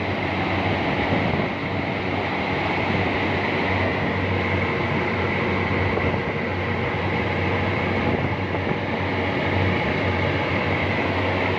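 Air-conditioning unit running: a steady rush of fan air with a low, even hum.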